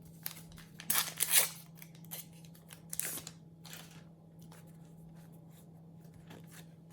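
Foil trading-card packet being ripped open, a few short tearing rustles in the first four seconds, then quiet card handling with small clicks.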